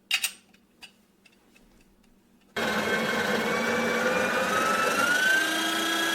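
A couple of sharp clicks, then the Breville Barista Express's built-in conical burr grinder starts suddenly and runs steadily, grinding a double-shot dose of beans into the portafilter. Its whine rises slightly in pitch partway through.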